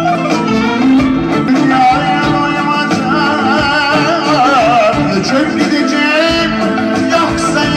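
Live Turkish band music: a violin plays a wavering melody over a steady plucked-string accompaniment.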